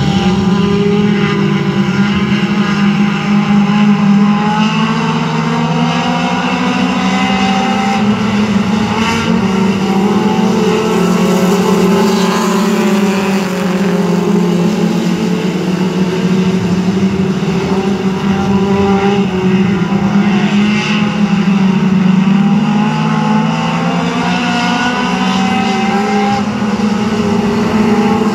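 A pack of four-cylinder mini stock race cars running laps on a dirt oval, their engines rising and falling in pitch again and again as the cars go by.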